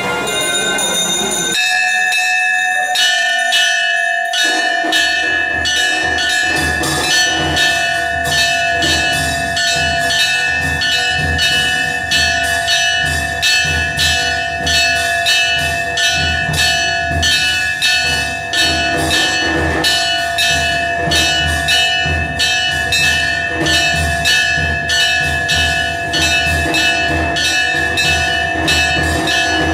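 Temple bells rung rapidly and without a break, giving a steady ringing over fast strikes. Drumming joins a few seconds in.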